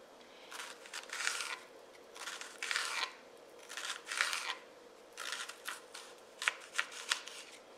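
A kitchen knife slicing through a whole onion on a cutting board into rings, with a crisp crunching cut about once a second. The strokes become shorter and sharper in the second half.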